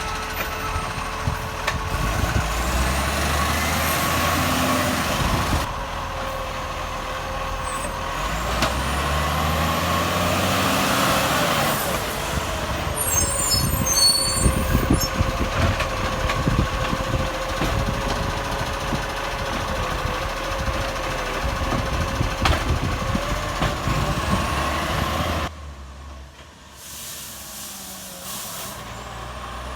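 International Acco side-loader garbage truck with a leaking exhaust, running loud and revving up and down several times as its lifting arm works, with a stretch of clattering around the middle. The sound drops sharply near the end.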